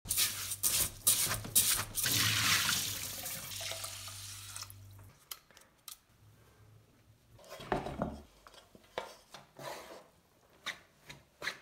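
Rice being washed by hand in a steel pot: grains rubbed and stirred in water, with splashing clicks and a steady wash of water that stops sharply about five seconds in. After a quiet stretch come a few short soft scrapes of a rice paddle turning rice in a wooden sushi tub.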